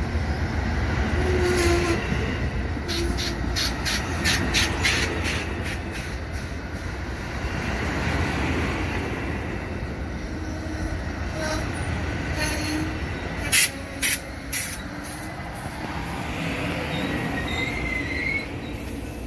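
Amtrak Superliner bilevel passenger cars rolling slowly into the station, a steady low rumble from the wheels on the rails. About three seconds in comes a quick run of clacks, about four a second, as the wheels cross rail joints, and a few louder sharp clacks come around halfway.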